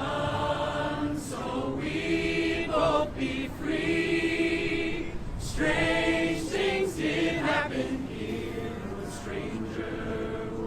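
Many voices singing together like a choir, holding long notes and moving between pitches.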